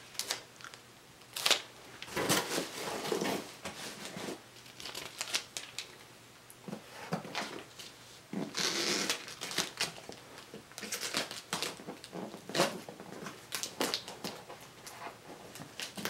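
Clear packing tape being pulled from a tape dispenser and pressed onto a cardboard box: a string of irregular short ripping pulls, the longest about nine seconds in, mixed with hands rubbing the tape down and shifting the box.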